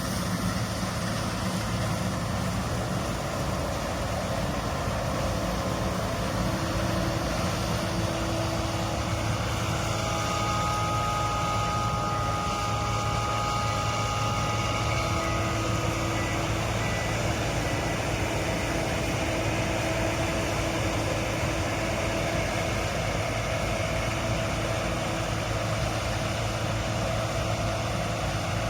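Massey Ferguson Fortia rotary combine harvester running steadily at work in canola, a constant engine hum under a dense mechanical noise. About a third of the way in, a steady whine of two high tones sounds for several seconds, then fades.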